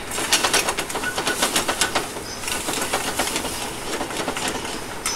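Metal tongs clattering and scraping against an aluminum sauté pan as butter is stirred into sizzling shrimp and wine sauce. The clatter is busiest in the first two seconds, over a steady sizzle.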